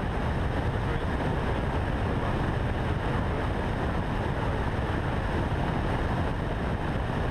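Steady rush of airflow over a wing-mounted action camera in flight, with the low, even drone of the Diamond DA40's engine and propeller beneath it.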